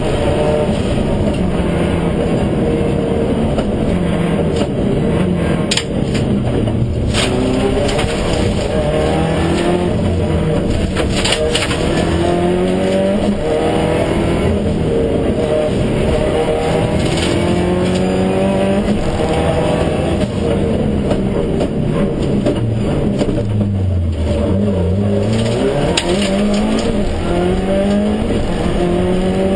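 Rally-prepared Subaru Impreza STI's turbocharged flat-four engine driven hard, heard from inside the cabin. The engine pitch climbs through each gear and falls at every upshift, and late on it drops deeply under braking and downshifting before rising again.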